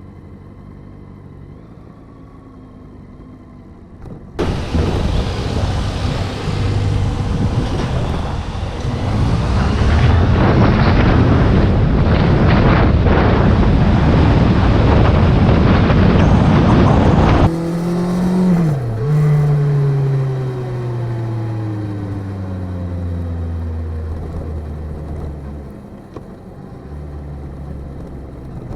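Motorcycle ride: faint engine hum, then from about four seconds in a loud rush of wind noise over the engine, growing louder as speed builds. It cuts off abruptly a little over halfway through, leaving the engine's tone clear and falling in pitch as the bike slows.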